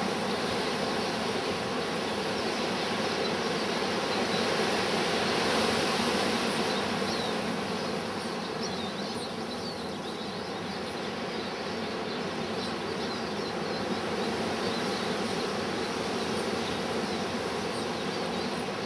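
Strong wind blowing steadily, swelling for a few seconds and then easing. Faint short high chirps of small birds come through it now and then in the second half.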